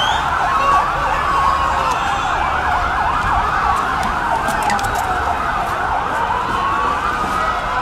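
Several sirens wailing and yelping over one another, their pitches rising and falling and crossing throughout.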